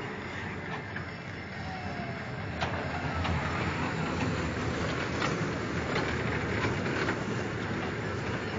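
Small children's ride train of duck-shaped cars running on its circular rail track: a steady rumble of wheels on rail, with scattered clicks.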